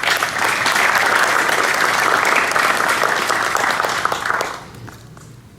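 Audience applauding, a dense burst of clapping that stops about four and a half seconds in.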